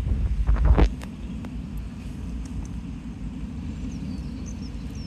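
Low, uneven outdoor rumble, heaviest and most gusty in the first second, then steadier. A few faint high chirps come in the second half.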